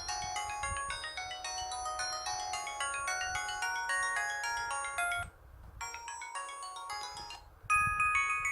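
A 64-polyphonic ringtone from a Pantech&Curitel PG-L1200 folder phone, playing a busy melody of short synthesized notes. It drops quiet about five seconds in, and a louder phrase starts near the end.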